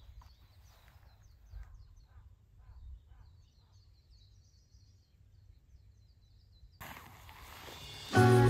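Faint outdoor ambience with a low rumble and small birds chirping in quick high calls. Loud music comes in near the end.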